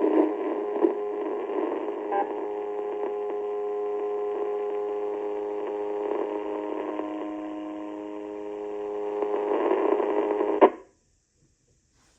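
Amateur radio receiver audio from a repeater carrying an awful noise: a steady, thin buzz of several humming tones over hiss, with no voice. It cuts off suddenly with a click near the end.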